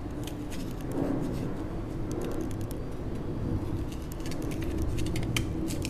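Scattered light clicks and taps of a kitchen knife and carrot against a cutting board, over a steady low background hum.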